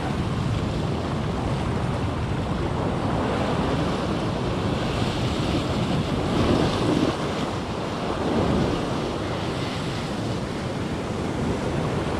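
Atlantic surf washing against the shore, with wind buffeting the microphone. The waves swell louder a couple of times in the middle.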